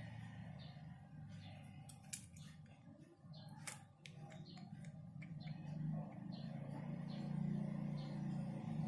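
A faint low rumble, like a motor vehicle, that grows louder toward the end, with a few light clicks and taps from the modem and phone being handled.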